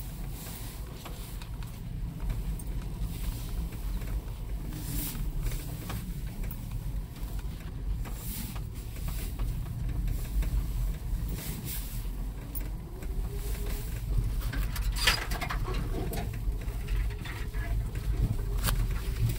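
A car driving slowly over a rough dirt track: a steady low engine and road rumble, with scattered knocks and rattles from the bumpy ground and a louder clatter about fifteen seconds in.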